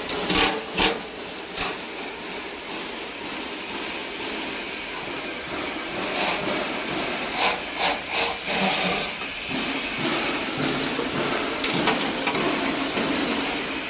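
Several sharp knocks from tools on harvester parts during disassembly, three close together at the start and a few more later, over a steady hiss.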